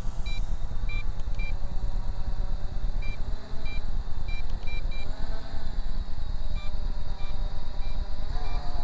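Short high beeps, repeating every half second or so, from an MJX Bugs 8 radio controller being used to fly a Bugs 3 drone, which is why it beeps. Under them runs a steady low rumble, and a faint whine from the drone's motors rises and falls.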